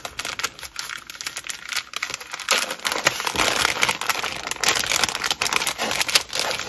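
Crinkling and rustling of a metallic plastic pouch with a clear window as it is handled and pulled open: a dense run of small crackles that gets louder about two and a half seconds in.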